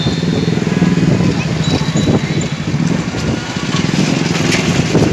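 A motorcycle engine running steadily at low revs, with a rough, even hum.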